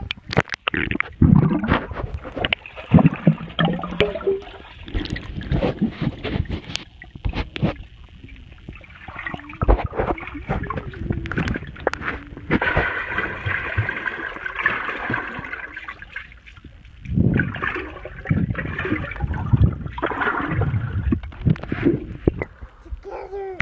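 Pool water heard through a submerged microphone: muffled sloshing and gurgling with irregular knocks and bubbling.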